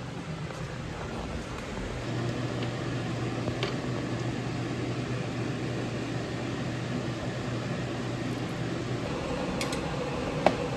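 Steady fan hum that gets louder about two seconds in, with a few light clicks and a sharper click near the end.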